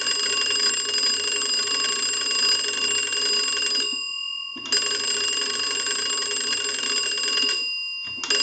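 The twin brass bells of a Stromberg-Carlson wooden wall crank telephone ringing as its hand-cranked magneto is turned, a ring test of the repaired magneto and readjusted bells. It rings in long spells with two short breaks, about four seconds in and again near the end.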